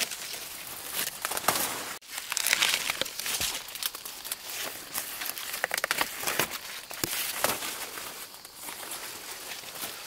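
Dry crinkling and rustling close to the microphone, made of many small crackles. It breaks off abruptly about two seconds in, then carries on.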